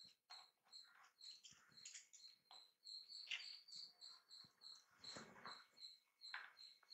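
Faint soft splashing as soaked rice and dal are poured into water in a pressure cooker and stirred with a wooden spoon, loudest about five seconds in. A faint high chirp repeats about three times a second behind it.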